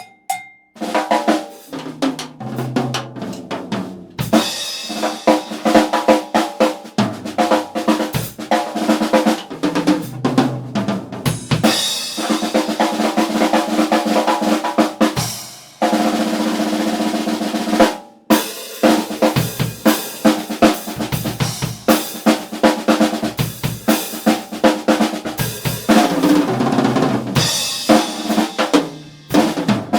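Ludwig LM405K 6.5x14 Hammered Acrolite snare drum, an aluminium shell, played with sticks: quick strokes, rimshots and sustained rolls, each hit ringing on, with a few brief pauses.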